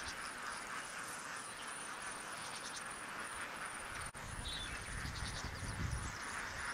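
A large flock of flamingos calling together: a steady, dense chorus of many overlapping calls. A faint high pulsing, about three beats a second, runs underneath.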